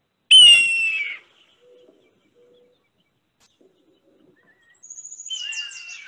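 Recorded red-tailed hawk scream, the hoarse descending call that films dub over bald eagles. One loud scream sliding down in pitch about half a second in, then a second, quieter scream that opens with a quick stutter near the end.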